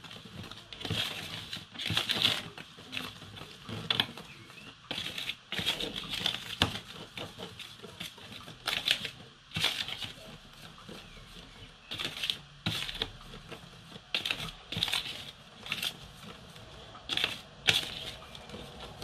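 Wire whisk mixing flour and other dry ingredients in a plastic tub: irregular scratchy clicks and scrapes of the wires against the tub, about one or two a second.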